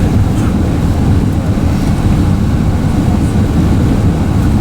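Steady, loud low rumble of engine and airflow noise inside the main-deck cabin of an Airbus A380 powered by Rolls-Royce Trent 900 engines.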